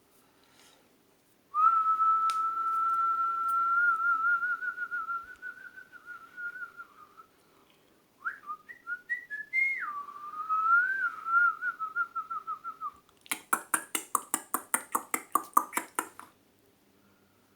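A person whistling a bird-song imitation by mouth: a long held note that breaks into a warble, then a second phrase that jumps up and down in pitch before warbling again. Near the end come about three seconds of rapid clicking, roughly seven clicks a second.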